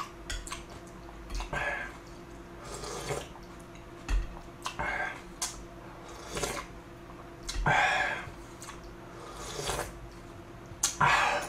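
A person eating jjamppong noodles up close: short wet slurps and chewing, coming every second or two.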